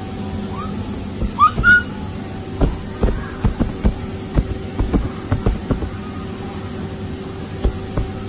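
Playground play noise over a steady hum: a few short, rising high squeals in the first two seconds, then an irregular run of dull knocks and thumps for a few seconds, with one more thump near the end.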